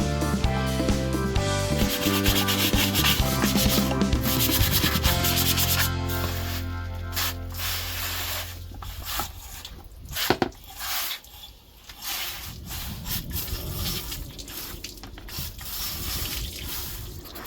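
Background music that ends in a held note and fades out over the first half. Then a run of irregular rubbing strokes on a surface, like hand sanding or scrubbing, with a sharp click about ten seconds in.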